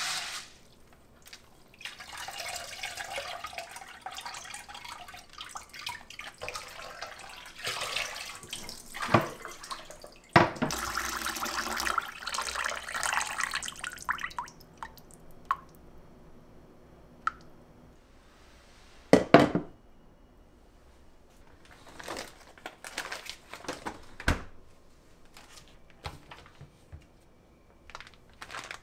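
Rice being washed by hand in water in a rattan basket inside a glass bowl: the grains swished around, a kitchen tap running into the bowl for a few seconds, then quieter dripping as the basket drains. Two sharp knocks about two-thirds of the way through are the loudest sounds.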